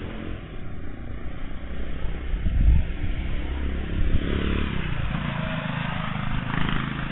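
A motorcycle running as it rides along the street, heard through an outdoor security camera's built-in microphone: a low engine rumble that peaks near the middle, with a brighter hiss joining about four seconds in.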